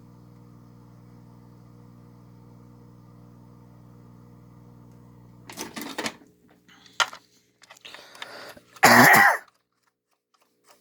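Steady low electrical hum from the 8-track player setup, which cuts off with a click about five and a half seconds in. A few handling clicks and knocks follow, then a loud throat clearing or cough near the end.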